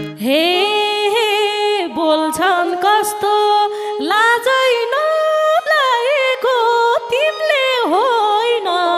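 Nepali dohori folk music interlude: a single melodic instrument plays a free, sliding, ornamented melody in short phrases, with no drums underneath.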